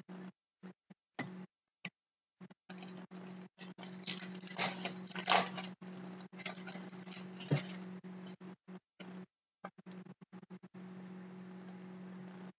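The foil wrapper of an Upper Deck hockey card pack is torn open and crinkled, and the cards slide against one another, making scratchy crackling that is thickest from about four to eight seconds in. A steady low hum runs underneath.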